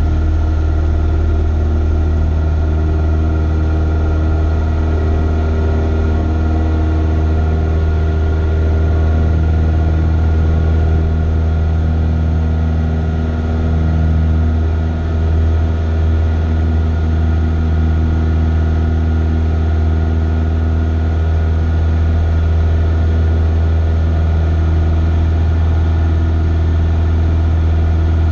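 A Cessna 172's piston engine and propeller running steadily, heard from inside the cockpit as a deep drone, with a brief dip in level about halfway through.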